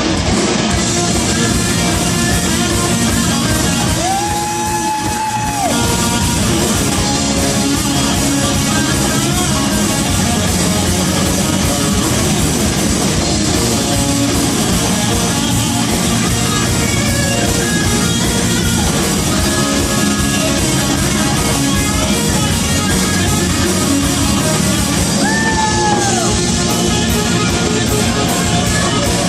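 Live rock band playing, electric guitars and drums with a singer. A long note is held about four seconds in, and another near the end slides down as it ends.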